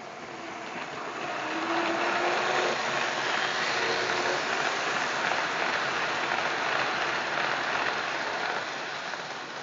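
O gauge model train with passenger cars rolling past on metal track, a steady rushing rumble of wheels on rails that swells as it nears, holds for several seconds, and fades as it moves away.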